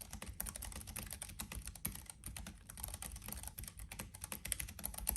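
Fast continuous typing on a Keychron K7 low-profile mechanical keyboard with Gateron Banana (tactile) switches: a dense, irregular patter of soft key clacks that stops abruptly at the end.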